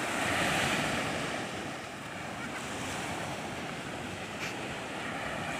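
Small surf breaking and washing up a sandy beach, swelling early on and then settling to a steady wash, with wind rumbling on the microphone.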